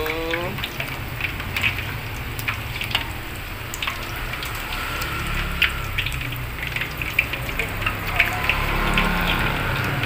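Egg-coated potato patties (perkedel) deep-frying in hot oil in a wok: a steady sizzle with scattered crackling pops.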